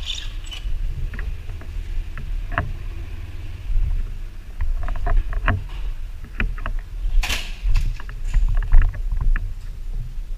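Fire truck's engine and road rumble heard from inside the cab, low and steady, with scattered clicks and rattles and one short loud burst of noise about seven seconds in.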